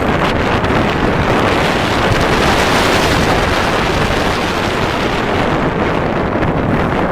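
Loud, steady wind rushing over the microphone during a ride on Sheikra, a Bolliger & Mabillard dive roller coaster, with the noise swelling slightly in the middle.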